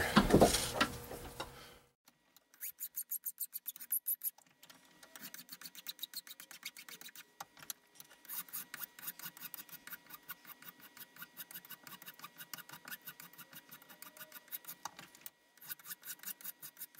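A fine-cut hand file rasping back and forth across the edge of a metal plate held in a bench vise, in quick, even strokes, several a second, with two short pauses. The finer file is smoothing the cut edge to take out the hacksaw, jigsaw and coarse-file marks.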